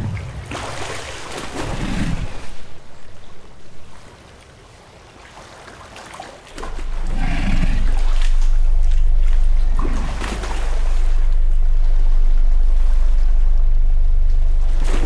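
Water lapping and splashing in swells against a wooden dock. About six seconds in, a steady low drone enters and continues beneath it to the end.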